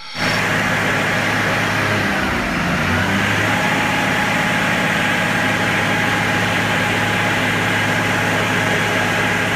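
Concrete mixer truck's diesel engine idling steadily at close range, with a thin steady whine over it.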